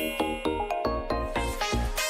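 Electronic background music with a steady bass beat and short repeated pitched notes.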